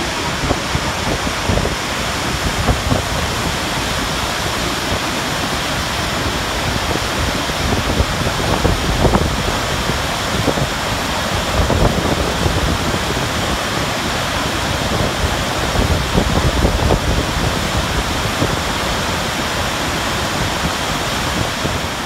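The Iguazu Falls, a vast mass of water plunging into the gorge: a loud, steady rush of noise with a deep rumble underneath.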